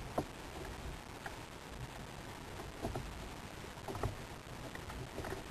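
Steady wind and sea noise around a kayak on open water, with a few faint knocks spread through it.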